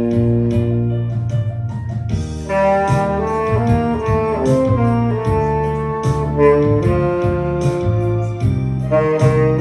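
Tenor saxophone playing a slow melody in long held notes over a recorded backing track with a steady drum beat.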